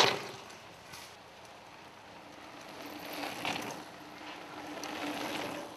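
A mountain bike coasting down a dirt trail and passing, its rear hub ratcheting as it freewheels. A brief loud rush comes right at the start, and the sound swells again past the middle and near the end as the bike comes close.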